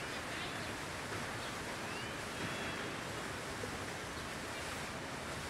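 Steady outdoor background hiss, with a few faint short bird chirps about two seconds in.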